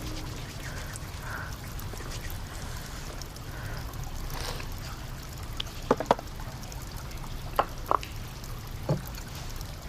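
Soft pouring or trickling of liquid, with a few short clinks of tableware in the second half, two of them close together about six seconds in.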